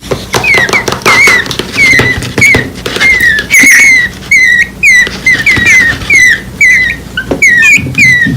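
Nestling birds less than a week old, chirping in rapid, repeated short chirps, about two to three a second: begging calls to the parent bird.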